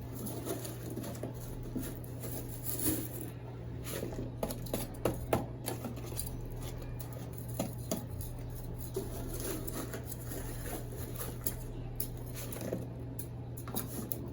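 Potting soil being handled and pressed into a pot: soft rustling and patter with scattered small knocks, over a steady low hum.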